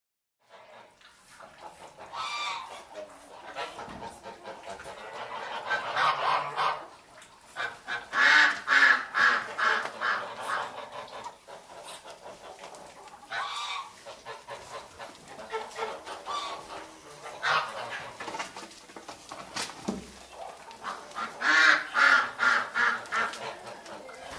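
A flock of domestic geese honking, with bouts of rapid repeated calls and quieter calling in between.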